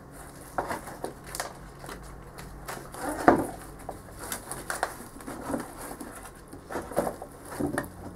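Irregular clicks, knocks and scrapes from hands and a blade working among plastic and clay plant pots and gravel substrate, with the sharpest knock about three seconds in.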